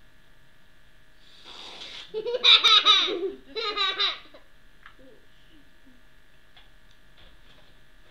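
A young girl laughing loudly in one burst of about three seconds, starting just over a second in.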